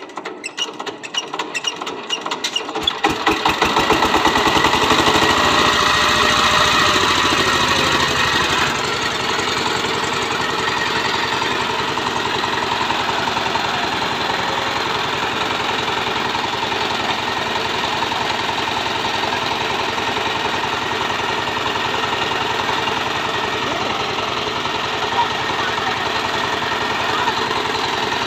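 Power tiller's single-cylinder diesel engine catching after being cranked, its beats speeding up and growing louder over about three seconds, then running fast and steady. About eight seconds in it eases down a little and runs on evenly.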